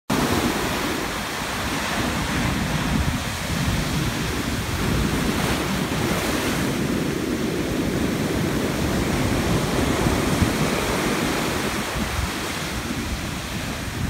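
Ocean surf breaking in big waves and foaming up the sand, a continuous roar with wind buffeting the microphone.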